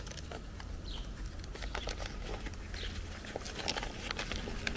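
Light scattered crinkles and clicks of a paper seed packet and plant label being handled, with faint bird chirps about a second and three seconds in, over a low rumble of breeze.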